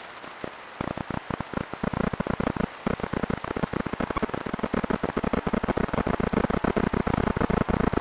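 Trail camera's audio crackling and popping with dense, irregular clicks that start about a second in and grow denser, over a faint steady high whine. This is an electronic recording fault, which the uploader puts down to the camera's batteries running low.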